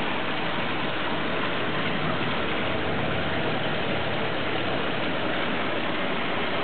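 Steady rushing noise of aquarium aeration and filter water, with air bubbles streaming up through the tank.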